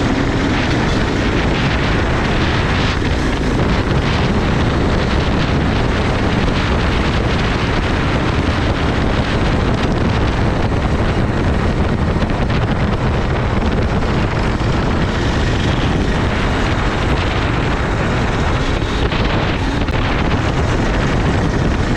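Racing go-kart running on track, heard through heavy wind rushing over the onboard microphone: a loud, steady rush with no breaks, the engine note buried in it.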